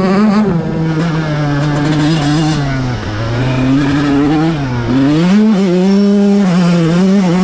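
Stock Yamaha YZ125 single-cylinder two-stroke engine pulling hard on a dirt trail, heard from on the bike. The revs sag about three seconds in as the rider comes off the throttle, then climb back up and hold steady near the top.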